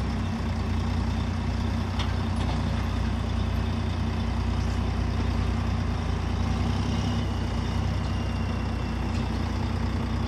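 Diesel lorry engine running steadily at low revs, a constant low drone, as the heavy truck manoeuvres slowly.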